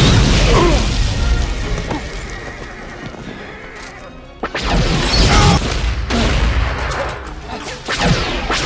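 Film action soundtrack: a horse whinnying over orchestral music, with loud sudden blasts at the start and again about four and a half seconds in.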